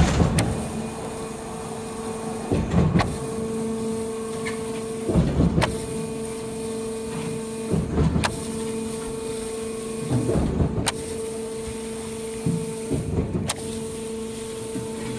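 Diesel concrete mixer with pump running: a steady hum, broken about every two and a half seconds by a loud clunk and rush, a regular pumping cycle.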